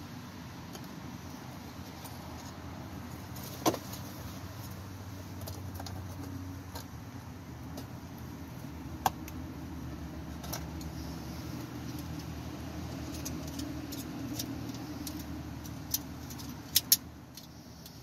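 Sharp plastic clicks and knocks from a BMW 5 Series F10 interior door panel and door handle being worked by hand with a small pry tool, over a steady low background hum. Single clicks come about four and nine seconds in, and a quick cluster of clicks near the end.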